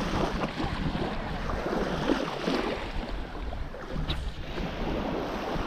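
Strong wind buffeting the microphone over the wash of surf breaking on the beach, with a brief click about four seconds in.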